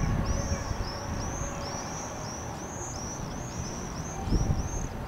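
A bird calling in a steady run of high, arched chirps, about three a second. Under it is a low, uneven rumble of wind on the microphone that swells about four seconds in.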